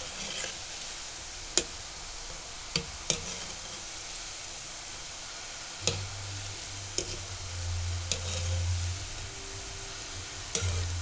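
Gulab jamun dough balls deep-frying in hot oil in a kadai with a steady sizzle. Several sharp metal clicks come at irregular moments, from a wire skimmer touching the pan. A low hum joins about halfway through.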